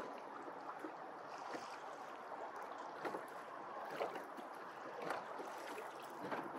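Small waves lapping against the pontoon hulls of a Pond Prowler 10 mini boat as it rocks at rest, a steady wash with a few sharper slaps about a second apart in the second half.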